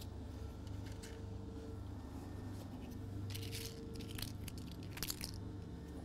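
Short, faint scrapes and rustles of plastic glazing packers being handled and set in a uPVC door frame, two clearer ones about three and five seconds in, over a steady low hum.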